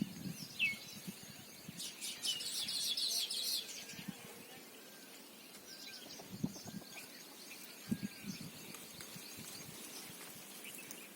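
Birds chirping and calling, with short gliding notes and a dense burst of rapid chirping about two seconds in. A few soft low thumps sound in the second half.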